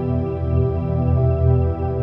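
Slow ambient background music of long, held notes that overlap and change gently.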